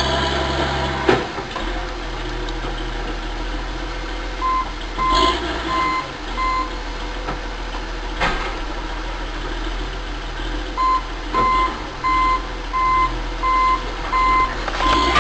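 Excavator's diesel engine running steadily while a backup/travel alarm beeps in two runs, about one and a half beeps a second. A few sharp knocks come through over the engine.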